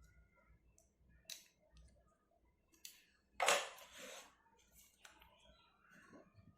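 Small charger parts being handled at a repair bench: a few light clicks, then a brief louder rasp about three and a half seconds in, followed by fainter scrapes.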